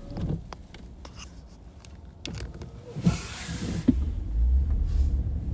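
Car cabin while driving: low engine and road rumble with scattered clicks and knocks, and a short hiss a little after three seconds in. The low rumble grows louder from about four seconds in.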